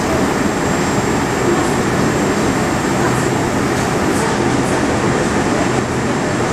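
Moscow Metro 81-765.2 subway car heard from inside the passenger saloon, rolling slowly along a station platform as it comes to a stop: a steady, even rumble and hiss with a few faint high ticks.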